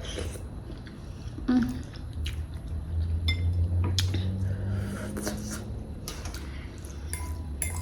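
Close-up eating of saucy instant ramen noodles: soft wet chewing and squishing, with scattered light clicks of a utensil against the bowl, over a steady low hum.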